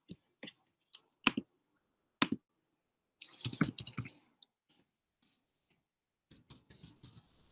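A few single clicks of a computer mouse and keys, then a quick run of computer keyboard typing about three seconds in, as a search term is typed, and more light typing near the end.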